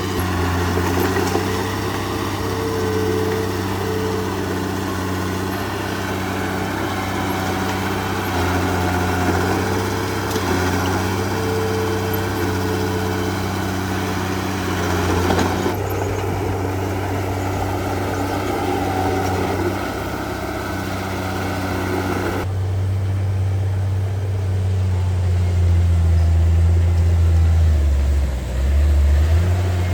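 Heavy diesel engine of earthmoving machinery running steadily under load. The sound changes abruptly twice, about halfway through and again near two-thirds in, where the deep engine tone becomes louder and the higher noise falls away.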